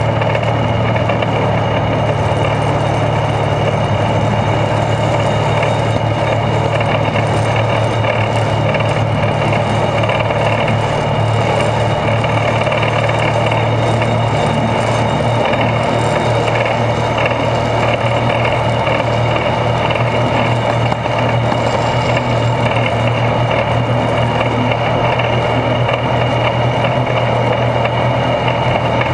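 Two-foot-gauge geared locomotive heard from beneath while it runs, its internal-combustion engine and driveshaft giving a steady low drone. A fainter high whine and the noise of the wheels on the rails lie over the drone. The sound holds even throughout.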